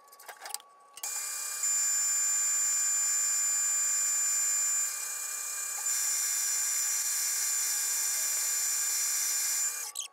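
Grizzly G0602 metal lathe switched on about a second in, running steadily with a high-pitched whine, then switched off near the end.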